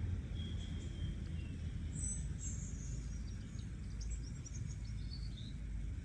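Faint outdoor birdsong: a thin high whistled note near the start, then high chirps and twittering from about two seconds in, over a steady low rumble.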